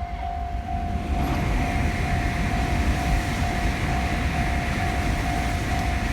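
Japanese level-crossing warning bell ringing steadily, about two strokes a second. About a second in, a passing train's rumble and rail noise rises over it.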